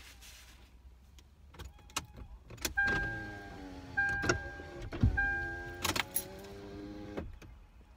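A car's warning chime dings three times about a second apart, over the whine of an electric window motor. A few clicks and one heavy thump about five seconds in.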